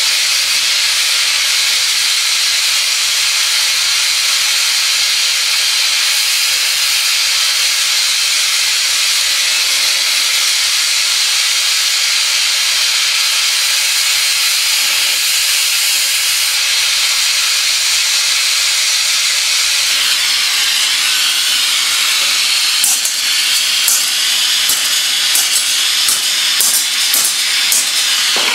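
Oxy-fuel torch flame hissing steadily as it heats a flat steel bar. In the last few seconds a scatter of sharp clicks sounds over the hiss.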